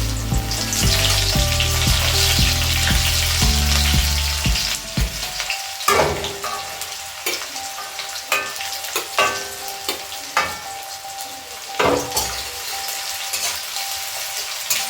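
Chopped onions frying in hot oil in a kadai, sizzling loudly at first, then settling, while a spatula stirs and scrapes them about once a second.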